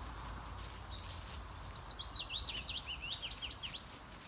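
Wild birds singing: a few high chirps, then from about a second and a half in a fast run of quick repeated notes lasting around two seconds, over a faint low background rumble.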